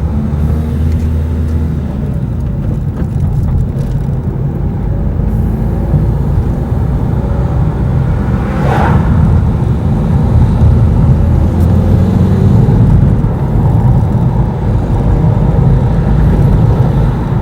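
Diesel passenger train running through a level crossing: a loud, steady low engine drone with rail noise. A short higher-pitched sound comes about halfway through.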